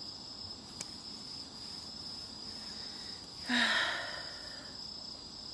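Crickets chirring steadily in one high, continuous tone, with a faint click just under a second in and a single breathy sigh from a man about three and a half seconds in.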